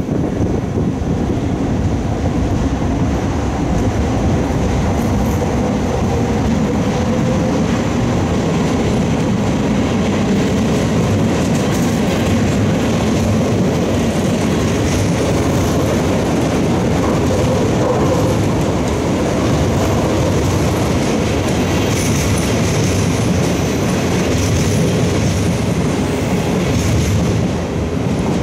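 NS double-deck intercity train running past close by along the station platform: a steady rumble of wheels on rails that eases off near the end.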